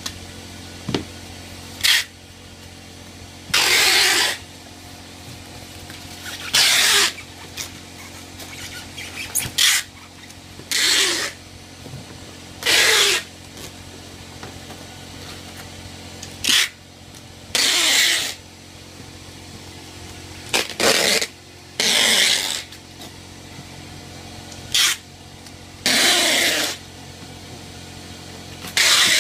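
Handling of packaging and faucet parts: a dozen or so short rustling, scraping bursts of about half a second to a second each, over a steady low hum.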